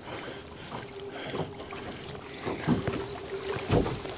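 Boat motor running steadily at trolling speed, a faint even hum, with a few soft knocks from handling in the boat.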